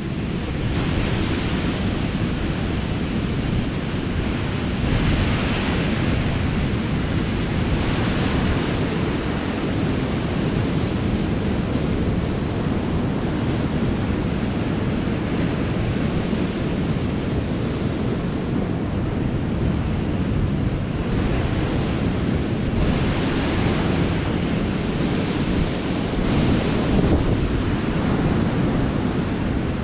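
Wind buffeting the microphone over the sound of sea surf, with waves washing in as a rising and falling hiss every few seconds.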